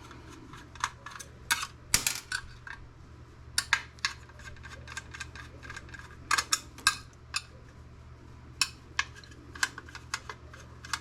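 Irregular light clicks and taps of small metal and plastic computer parts and hand tools being handled on a work surface, a few sharper knocks among them. A faint steady hum runs underneath.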